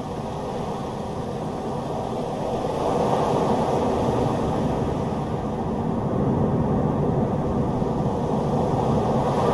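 Strong storm wind blowing as a steady low rumble, swelling in gusts and easing off slowly.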